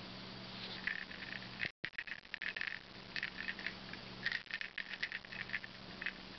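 Blue van Persian kitten moving about on plush fabric: quick, irregular soft clicks and rustles over a steady low hum, with the sound cutting out for a moment about two seconds in.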